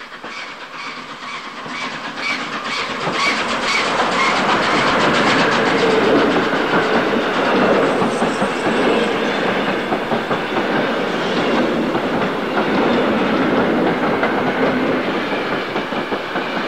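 Added rail sound for an HO-scale model freight train of tank wagons: wheels click evenly over rail joints at first, then the sound swells into a steady, loud rolling rumble by about four seconds in as the wagons pass.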